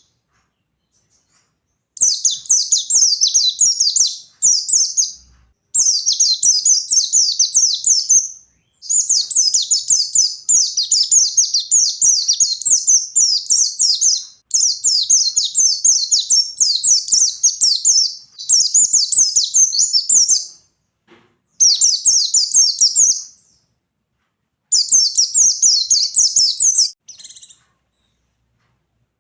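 White-eye (pleci) singing its long, fast 'ngalas' warble: high, rapid twittering in about seven runs of a few seconds each, with short breaks between them. It is the bird in full song ('gacor').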